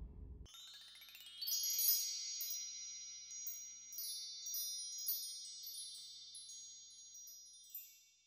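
The end of the background music cuts off about half a second in, then a high, sparkling chime effect plays for the logo sting: many tinkling, wind-chime-like pings over a held ringing chord that slowly fades away near the end.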